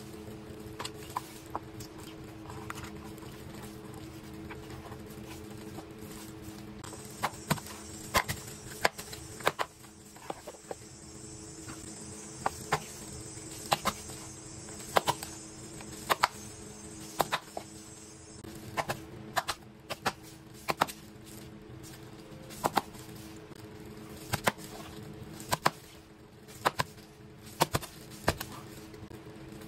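Large kitchen knife chopping a cooked chicken on a plastic cutting board: sharp knocks of the blade hitting the board, sparse at first, then about one a second from a few seconds in. A steady low hum runs underneath.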